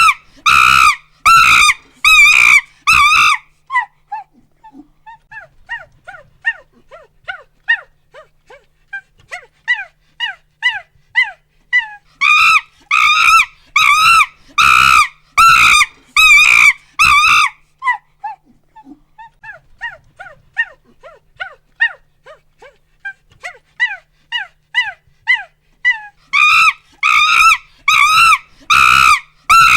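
Monkey hooting and screaming: bouts of loud, rapid high-pitched screams alternate with runs of quieter short hoots that grow louder and lead back into the screaming, the cycle coming round about every 13 seconds.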